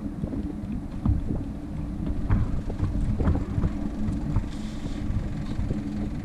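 Wind buffeting the microphone as a low rumble, with a faint steady hum underneath and scattered light knocks.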